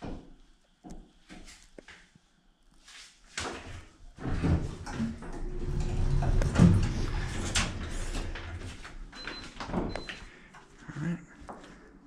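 Guthrie hydraulic elevator's sliding doors opening on arrival, with footsteps stepping out of the car and two short high beeps near the end.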